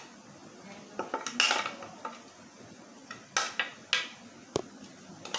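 Spoon and spice containers clinking and tapping against a glass mixing bowl as spices are added: a handful of separate clatters, with a sharp single click near the end.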